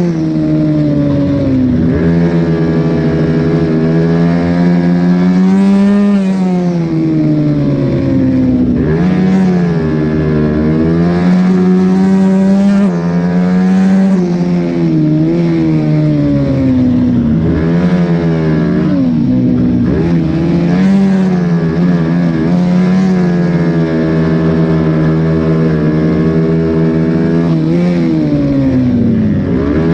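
Mini road-racing motorcycle's engine heard from onboard, running at high revs around 9,000–11,000 rpm. Its pitch climbs and drops repeatedly as the throttle opens and closes through the corners.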